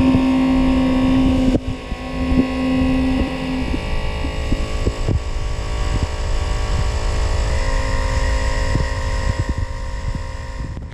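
Heavy vehicle running, a steady low throbbing hum with scattered knocks and clicks. A strong steady humming tone stops about three and a half seconds in.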